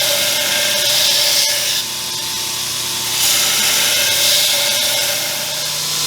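Power grinder or sander running steadily while the steel blade is ground in passes, the grinding noise swelling and easing about every couple of seconds over a steady motor hum.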